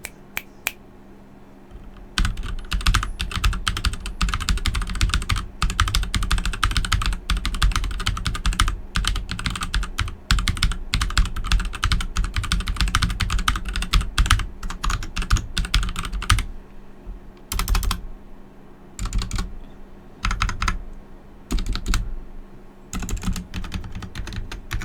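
Royal Kludge mechanical keyboard with linear Gateron Red switches, typed on fast and steadily for about fourteen seconds from two seconds in, then in short scattered bursts of keystrokes. The keycaps are mostly stock ABS, with a few PBT pudding caps that sound more solid.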